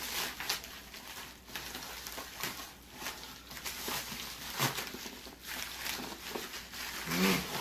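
Cardboard shipping box and packing tape being worked open by hand, an irregular run of rustling, scraping and tearing noises, with a short voice sound near the end.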